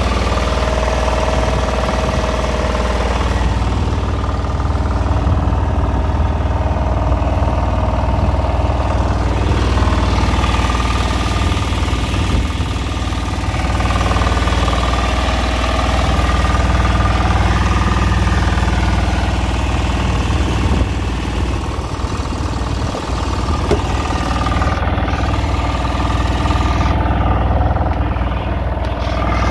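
Small fishing boat's engine running steadily, a constant low rumble with a steady hum above it.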